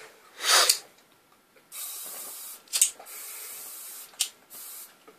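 Aerosol spray can hissing in three short bursts, each a second or less, with brief sharp sounds between them. A louder short rush of noise comes about half a second in.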